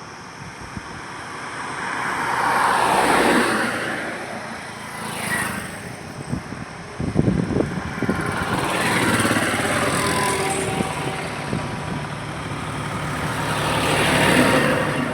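Highway traffic: vehicles pass one after another, each one's tyre and engine noise swelling and fading, about four in all. A rough, low engine rumble from a heavier vehicle stands out around the middle.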